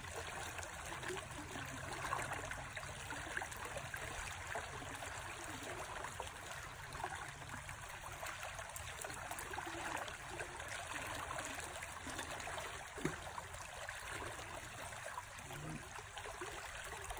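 Shallow river current running and trickling steadily, a constant even wash of water.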